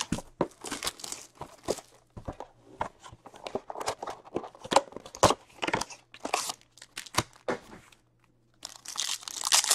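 Plastic shrink wrap being torn and crumpled off a hockey card hobby box and the cardboard box opened: a string of short, irregular crinkles, rips and taps. Near the end, after a brief pause, comes a longer, louder crinkling tear.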